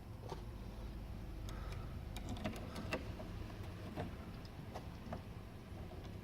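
Scattered light clicks and taps of metal deadlatch parts and tools being handled during reassembly, over a low steady rumble.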